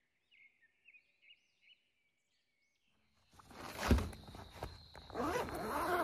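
A few faint, short high chirps, then from about three seconds in, loud rustling and handling noise with a sharp knock about a second later.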